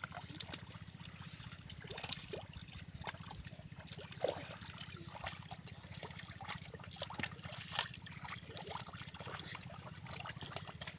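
River water splashing and trickling as hands work in it, with many small splashes and two louder ones about four and eight seconds in, over a steady low hum.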